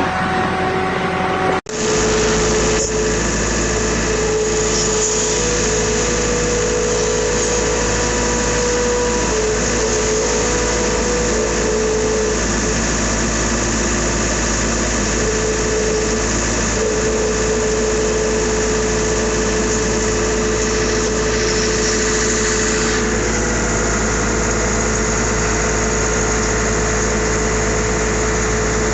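Farm tractor's diesel engine running steadily, with a faint whine that comes and goes. A sudden break about two seconds in, after which the engine sound carries on at the same level.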